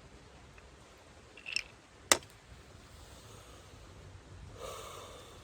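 A small click, then a single sharp, loud click about two seconds in, and a brief soft hiss near the end.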